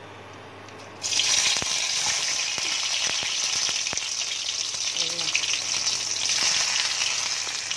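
Chopped onion dropped into hot mustard oil in a kadhai. It sizzles loudly and suddenly about a second in, then fries steadily with scattered crackles.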